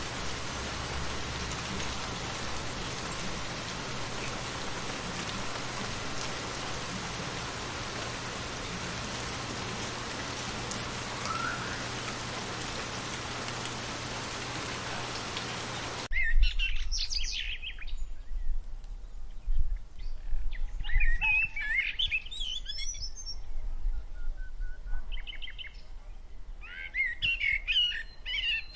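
Steady rain falling, cutting off abruptly about halfway through; then birds chirping and singing in short, repeated phrases.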